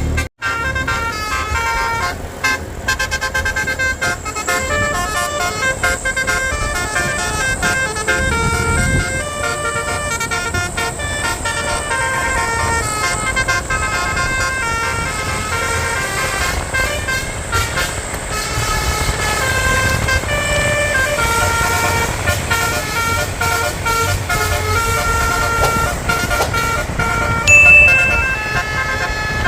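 Basuri telolet bus horns playing quick multi-note tunes over the rumble of the buses on the road. A brief loud high tone sounds near the end.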